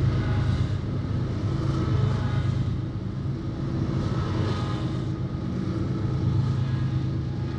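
Diesel locomotive engine running with a steady low drone and faint higher tones over it.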